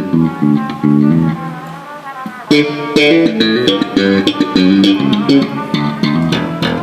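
Amplified electric bass and guitar playing short repeated notes while the band warms up for a soundcheck; about two and a half seconds in the sound gets fuller and brighter as more instruments come in.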